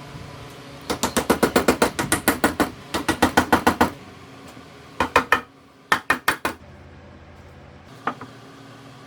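Rapid runs of sharp knocks, about seven a second: a long run of about three seconds, two shorter runs, then a single knock near the end.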